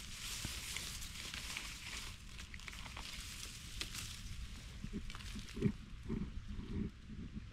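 Dry leaf litter rustling and crackling with scattered sharp clicks, as mushrooms are picked from the forest floor, against a steady high hiss. Several short low grunt-like sounds come between about five and seven seconds in.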